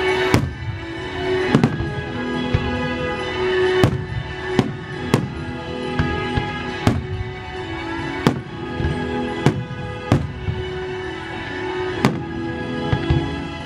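Fireworks bursting with a dozen or so sharp bangs, roughly one a second, over orchestral music with long held notes.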